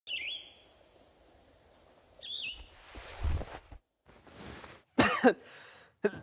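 Two short bird chirps, then a person coughing about five seconds in, a sign of a cold.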